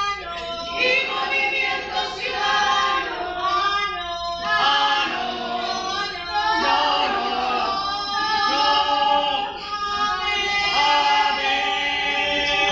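A group of women singing together in chorus, in long held phrases with short pauses between them.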